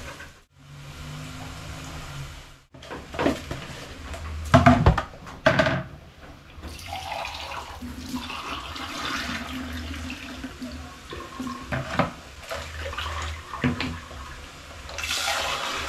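Water from a kitchen tap running and splashing into a stainless steel sink as rice is rinsed and the rinse water poured off, with several sharp knocks and splashes of a plastic bowl and mug handled in the sink.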